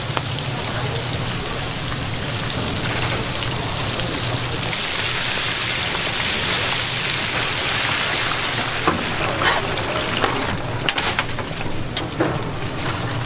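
Battered shrimp deep-frying in a wide tray of hot oil: a steady sizzle that grows louder and brighter about five seconds in, with a few sharp clicks in the last few seconds.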